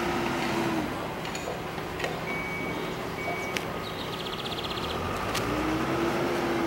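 Street background noise with a vehicle engine hum that falls away about a second in and rises back near the end, and two short high beeps in the middle.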